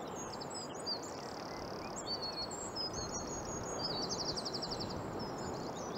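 Small birds chirping, with repeated short high-pitched calls and fast trills, over a steady background hiss.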